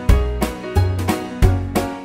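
Background music with a steady bass beat.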